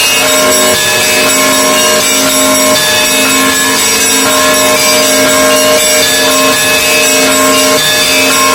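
Russian Orthodox monastery bells ringing, many bells sounding at once, their tones overlapping without a break.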